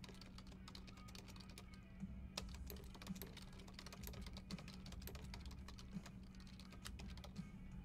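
Faint typing on a computer keyboard: a run of quick key clicks that gets busier about two seconds in, over a steady low electrical hum.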